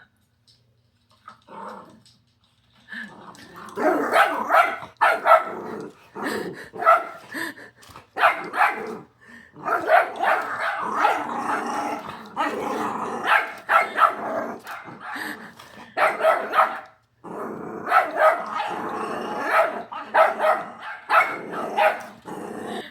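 A puppy barking and growling in rapid, repeated bouts, starting about three seconds in, with a few brief pauses.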